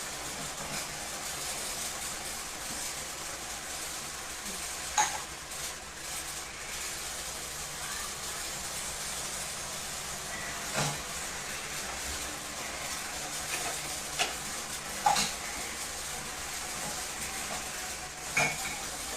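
A steady hiss with about five sharp clicks or taps scattered through it.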